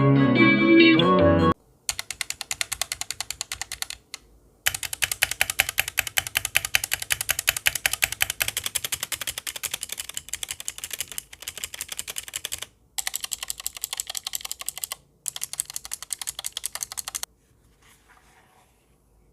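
Music cuts off about a second and a half in, then a HyperX Alloy Origins mechanical keyboard is typed on fast in several runs of rapid keystrokes, broken by short pauses. The typing stops a couple of seconds before the end.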